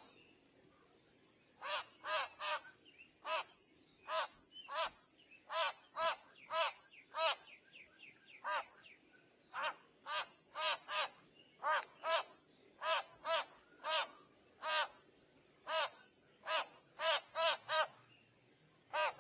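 A bird calling over and over in short, arched caws, about one or two a second and irregularly spaced, with a brief lull partway through.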